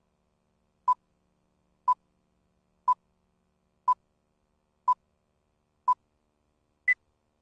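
Countdown-leader beeps: seven short electronic beeps, one each second, one for each number of the countdown. The last beep is an octave higher than the six before it, marking the end of the count.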